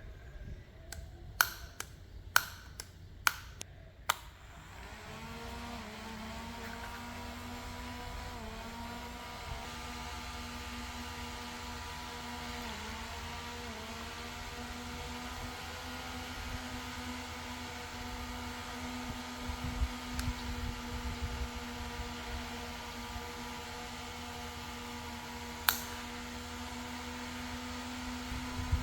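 A few sharp clicks, then a small battery-powered DC motor of a homemade fan starts about four seconds in. It rises quickly to speed and runs with a steady whir, then stops at the end.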